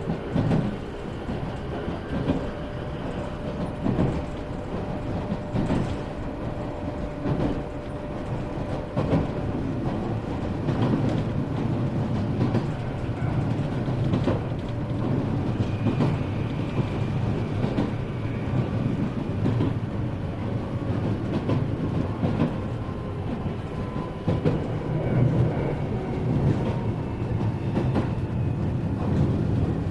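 Iyotetsu 3000-series electric train heard from inside the passenger car while running, with a steady wheel-and-track rumble. Clacks over rail joints come at irregular intervals throughout.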